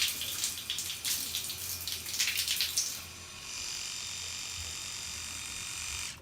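Tap water running and splashing into a sink. About three seconds in this gives way to an electric toothbrush's steady high buzz.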